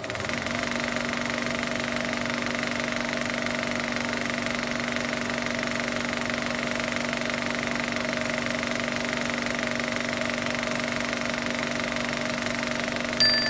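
Steady mechanical running sound with a constant, unchanging hum, used as the sound effect under a film-reel logo. Near the end a sudden bright ringing hit cuts in.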